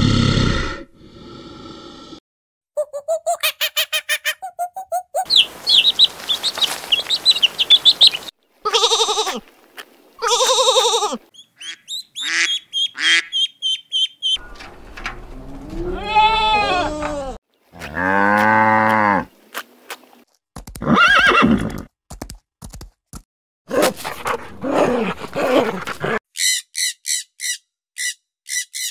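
A string of different animal calls and cries, each lasting about a second or a few seconds, cut hard one after another with short silences between: some long pitched calls that bend up and down, others rapid high chirps and clicks.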